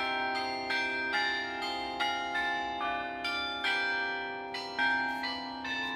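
Bells struck in a running sequence, about two or three strokes a second, each note ringing on under the next.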